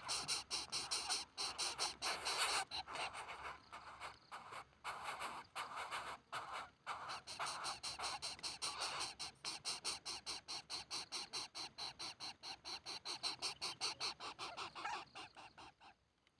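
Coucal chicks making a rapid, raspy, breathy pulsing sound, about five or six pulses a second, which stops abruptly near the end.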